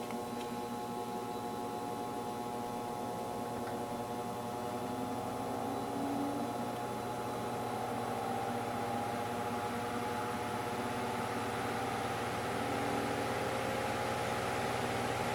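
1960s Dominion 12-inch table fan running: a steady electric-motor hum with a whirring tone that creeps slowly up in pitch and gets a little louder as the fan gathers speed.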